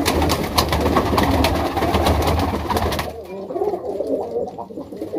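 Domestic pigeons cooing in a loft. For about the first three seconds a rapid clatter of clicks and rustling over a low hum covers the cooing, then stops suddenly, leaving the cooing alone.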